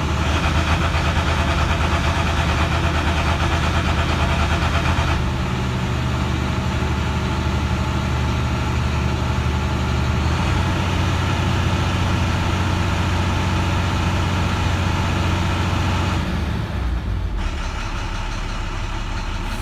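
Navistar MaxxForce DT inline-six diesel running steadily at a raised idle of about 1,500 rpm, held there by the scan tool's key-on-engine-running standard test. About 16 seconds in it drops back to a low idle near 700 rpm.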